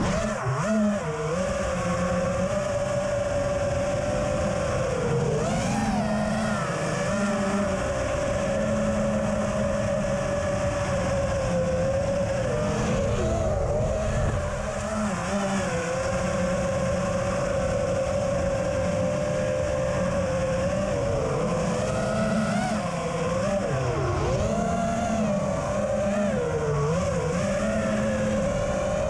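Brushless motors and 5-inch propellers of an FPV quadcopter heard from on board: a steady whine that dips and rises in pitch with the throttle, over a constant rush of air.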